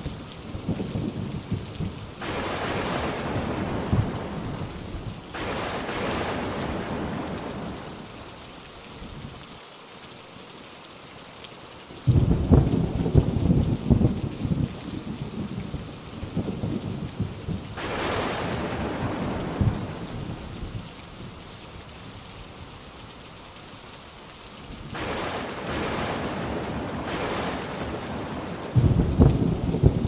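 Thunderstorm: steady heavy rain whose hiss swells and eases in waves, with rolling thunder rumbling at the start, again in a long, crackling peal about twelve seconds in, and once more right at the end.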